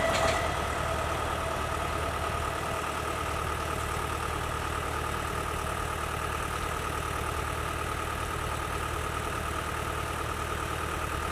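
Steady machine hum with a thin, even whine over it, holding at one level, then cut off abruptly at the end.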